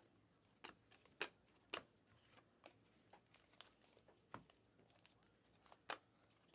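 Faint, irregular clicks and slides of glossy Panini Mosaic basketball cards being flipped by hand through a stack, one card sliding off the next, with a couple of sharper snaps about a second in and near the end.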